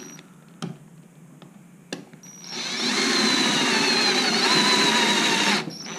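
Power drill with a Phillips bit driving a screw into the base of a battery casing: the motor runs for about three seconds with a whine that sags slightly, then stops suddenly once the screw is firm. A couple of light clicks come before it starts.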